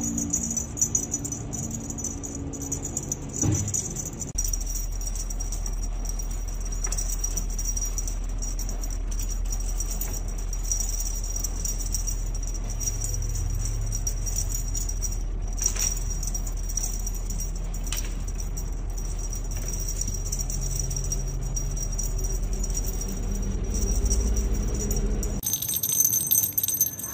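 Light, continuous jingling and rattling over a low hum; the hum cuts off suddenly near the end.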